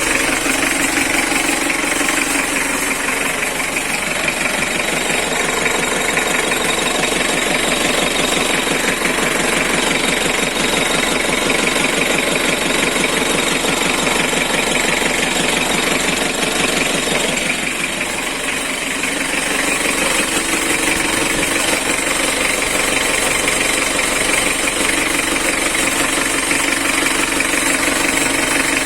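1995 Isuzu Panther diesel engine running with a fast, steady knocking clatter: the strange noise it is being checked for. The engine note dips briefly and recovers twice.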